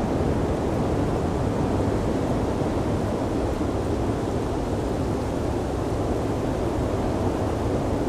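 Steady blizzard wind: a deep, even rush of noise with no distinct gusts or breaks.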